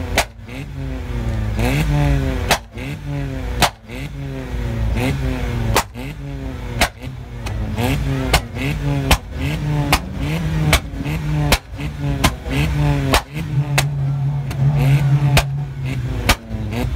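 Vauxhall Corsa's engine blipped hard about once a second, the revs rising and falling each time, with sharp pops and bangs cracking from the exhaust on the overrun, the sign of a pops-and-bangs remap. Near the end the revs are held steadier for a couple of seconds.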